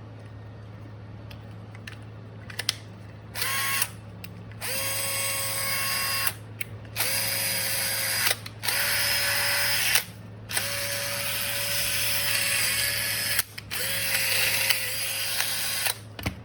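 Bosch GSR 10.8-2-LI cordless drill, fitted with a replacement electronic board, running in about six short bursts. Each burst spins up quickly and runs steadily for one to three seconds before stopping. A few light clicks come before the first run.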